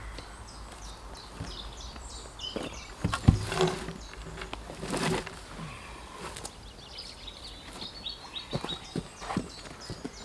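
A bird sings a run of short, high, repeated notes, twice, over scattered knocks and thuds of wood being handled. The loudest is a sharp knock about three seconds in.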